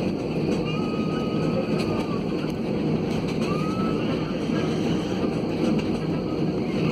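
Steady engine and air noise inside a passenger airliner's cabin as it taxis on the runway before its takeoff run.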